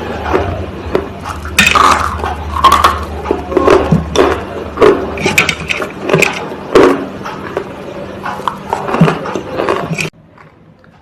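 Crisp, irregular crunching and cracking of a brittle material being crushed, in quick snaps and crackles. It cuts off abruptly about ten seconds in.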